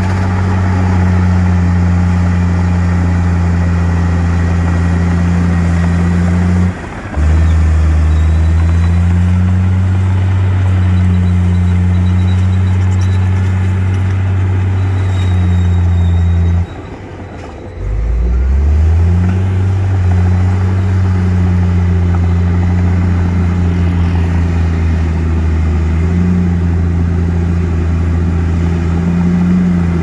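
Komatsu crawler bulldozer's diesel engine running steadily under load as it pushes a pile of dirt and rock. The engine sound drops briefly about seven seconds in, and again for about a second halfway through, then climbs back up in pitch as the engine picks up again.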